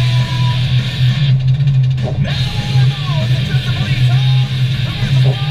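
Music led by guitar, with sliding, bent notes over a steady low drone.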